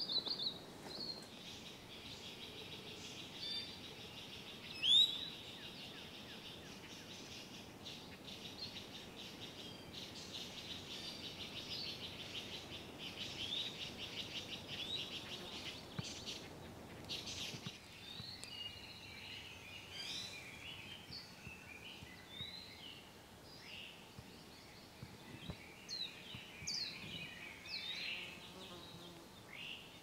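Forest songbirds calling and singing. A loud rising whistle comes about five seconds in, then a long rapid high trill, then scattered chirps and short whistles.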